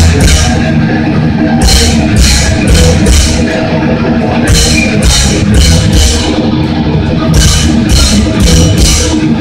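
Thrash metal band playing live at full volume: heavy guitars and bass over drums, the cymbals struck in steady runs about two and a half times a second with short breaks between runs.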